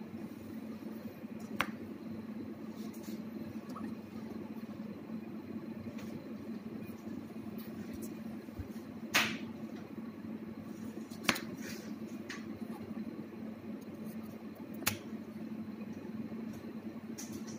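Sharp plastic clicks and snaps from a Honda Accord remote key fob's shell being pried open and handled: about four distinct clicks, the loudest about nine seconds in, with fainter ticks between, over a steady low hum.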